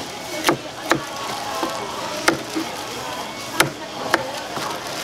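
A kitchen knife chopping through boiled pork offal and sundae on a plastic cutting board: about half a dozen sharp knocks of the blade hitting the board, irregularly spaced.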